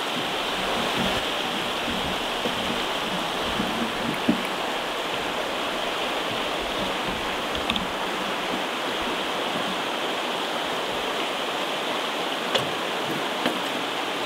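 Steady rushing of fast-moving river water at the foot of a rapid, with a few brief faint clicks.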